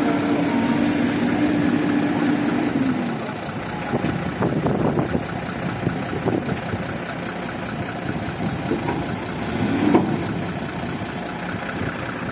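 Heavy diesel engines of a loaded truck and a CAT backhoe loader running. A steady high drone drops away about three seconds in, then settles to a lower idle with scattered knocks and clatter.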